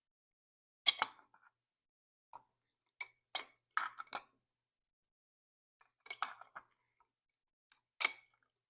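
Metal clinking from wrenches and steel hoist parts being handled and set down: a handful of separate sharp clinks, with short gaps between them.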